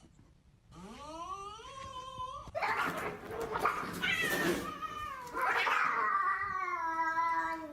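Cat caterwauling: a drawn-out yowl that rises in pitch, then two louder, harsher cries, then a long wail that slowly falls in pitch near the end.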